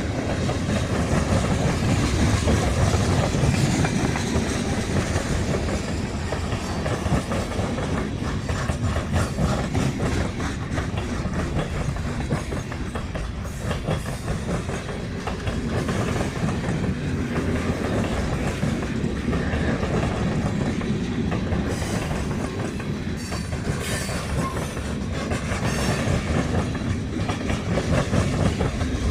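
Cars of a manifest freight train rolling steadily past, their wheels clicking over the rail joints.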